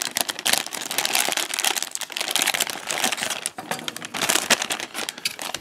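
Thin clear plastic polybag crinkling as it is torn open by hand and the plastic model-kit runners are pulled out. It is a continuous crackle broken by many small sharp clicks.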